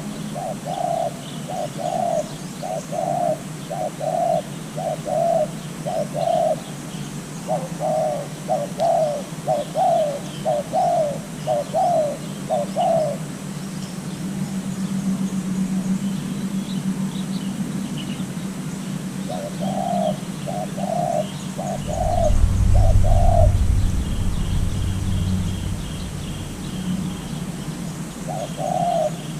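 A dove cooing in long runs of quick, evenly spaced notes, pausing a few seconds between runs, with faint higher chirps of small birds. A low rumble about two-thirds of the way through is briefly the loudest sound.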